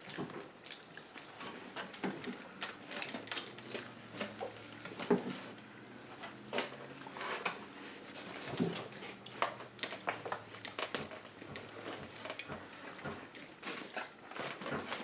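Close-miked eating sounds: people chewing and biting into burgers and fries, with irregular mouth smacks and clicks throughout.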